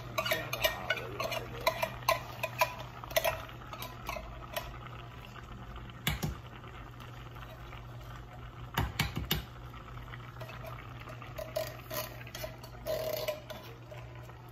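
A metal spoon clinking and scraping against a pot and can while stirring food, with quick repeated clinks in the first few seconds, a single knock about six seconds in and another flurry around nine seconds. A steady low hum runs underneath.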